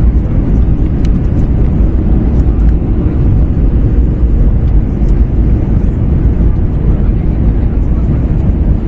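Steady cabin roar inside an Airbus A321 on approach, engine and airflow noise from its CFM56 engines heard from a window seat: a deep, even rumble with no change.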